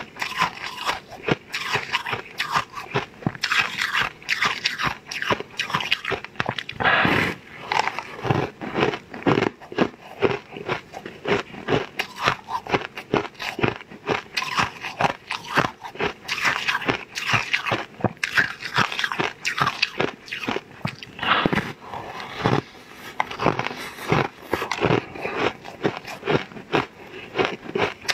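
Crunching bites and chewing of a large crisp puffed-rice cracker: a dense, irregular run of sharp cracks with short lulls between bites.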